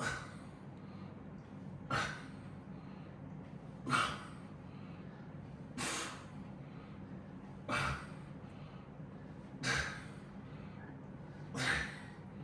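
A man breathing out hard through his mouth on each rep of a weightlifting set, a sharp exhale about every two seconds, seven times.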